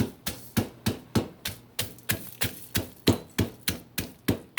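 Pestle pounding in a mortar in a steady rhythm of about three strikes a second, each with a short ring, crushing peppercorns, coriander seed, ginger and garlic into a spice paste.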